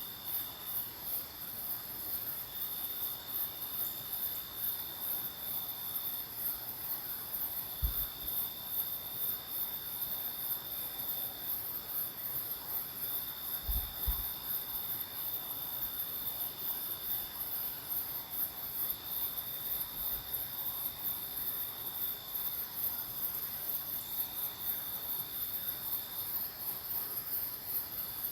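Night insect chorus: a steady, very high, rapid pulsing, with another insect trilling on and off in stretches of a few seconds. Twice a brief low thump, like the microphone being bumped.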